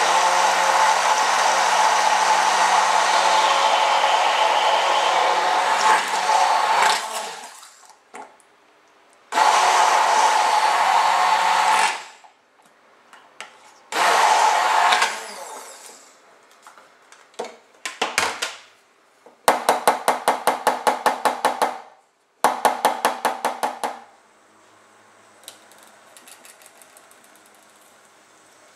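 Immersion blender running in a steel jug, blending a creamy dressing: one long run of about seven seconds, then two shorter bursts. After it come a few clicks and two spells of fast, even rattling pulses.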